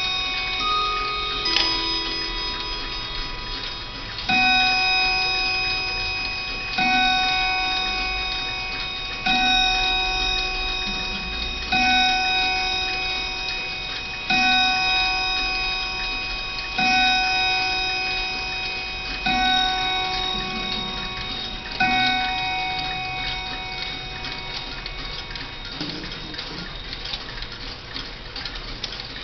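Howard Miller 612-429 key-wound mantel clock ending its chime tune, then striking eight o'clock: eight ringing strikes about two and a half seconds apart, each left to ring on. The movement ticks steadily underneath.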